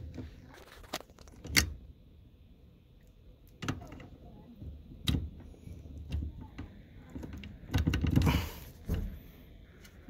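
Scattered metallic clicks and taps from a new ignition lock cylinder and its key being worked into a tight steering-column housing by hand. A louder rustling scrape comes about eight seconds in.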